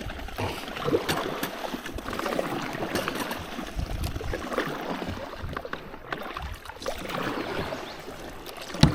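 Rushing, splashing river water around a kayak running a fast shoal, with a few sharp knocks in the first couple of seconds.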